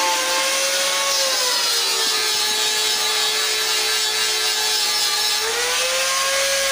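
A handheld electric buffer polishing a stainless steel bumper. Its motor whine drops in pitch about two seconds in, as the pad is pressed onto the tube, and rises back near the end, over the rubbing hiss of the pad on the metal.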